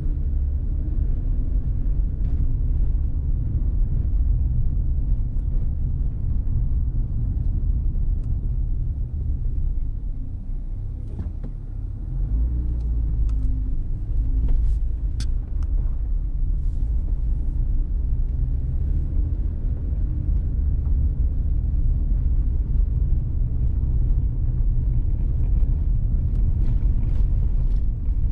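Low rumble of a car driving slowly, engine and road noise, easing off for a moment about ten seconds in before picking up again, with a few faint ticks.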